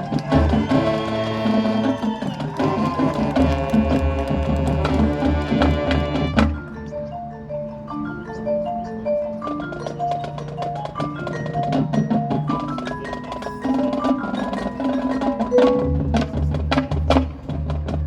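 High school marching band playing its field show. About six seconds in, the full band drops away, leaving mallet percussion playing a run of separate notes over light clicking percussion. The full band comes back in near the end.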